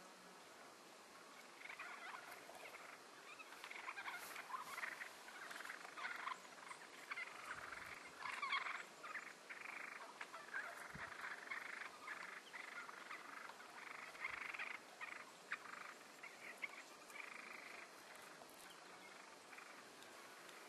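Wild turkeys calling while they fight: a dense, rapid rattling chatter that starts about two seconds in and dies down near the end.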